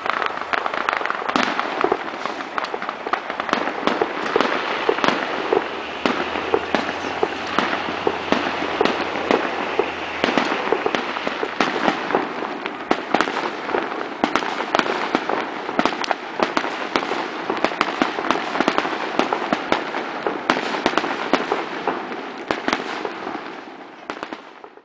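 Aerial fireworks bursting in rapid succession: a dense, continuous crackle of many sharp pops and bangs, dying away just before the end.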